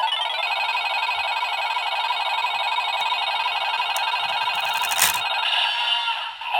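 Bandai DX Fever Slot Raise Buckle toy playing its electronic slot-machine spinning sound through its small speaker: a fast, steady ringing jingle, with a sharp click about five seconds in.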